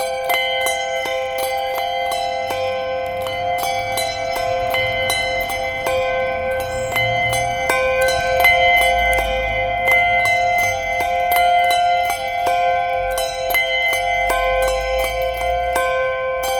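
Handbells rung in steady, even succession, about four or five strikes a second, each bell's tone ringing on and overlapping the next.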